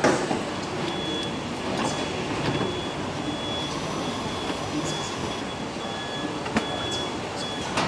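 Steady car-factory assembly-hall noise: a constant machinery din with a few sharp clicks and clanks, and a thin high whine that comes and goes.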